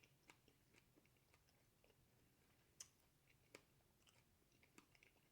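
Near silence, broken by a few faint, brief clicks of chewing.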